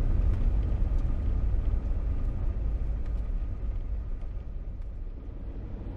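Diesel truck driving along a gravel dirt road: a steady low rumble of engine and tyres, easing off somewhat toward the end.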